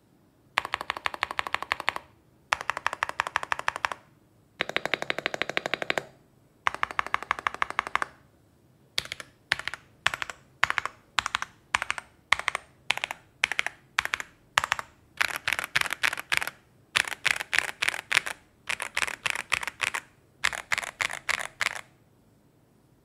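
Kzzi K75 Pro mechanical keyboard with stock Moment switches, lubed stabilizers and tempest tape mod, being typed on with crisp, poppy clacks. It begins with four short bursts of rapid key presses, then slower separate presses on the modifier keys at the left, then several long runs of fast two-handed typing.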